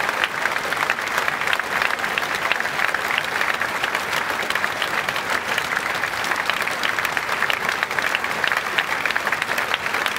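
A large stadium crowd applauding steadily, thousands of hands clapping at once in a dense, unbroken patter: sustained applause given as a tribute.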